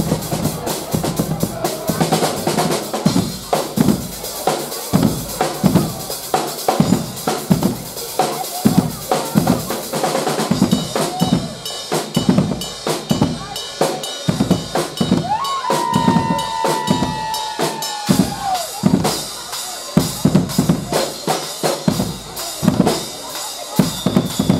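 A Guggenmusik band's percussion section, with big bass drums, snare and drum kit with cymbals, playing a steady driving rhythm. About two-thirds of the way through, a single held high tone sounds over the drums for a couple of seconds and bends downward at its end.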